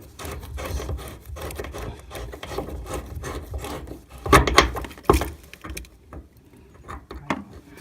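A copper pipe fitting being worked off by hand, scraping and rubbing continuously for about four seconds. Then come a few loud knocks a little after four seconds and again near five seconds, and quieter handling after that.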